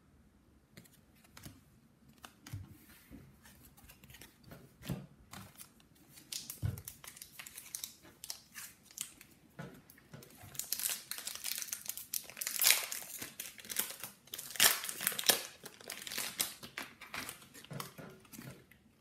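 Crinkly wrapper of an AFL trading-card pack being torn open and crumpled in the hands, a sparse crackle at first that becomes a loud, busy crinkling about ten seconds in.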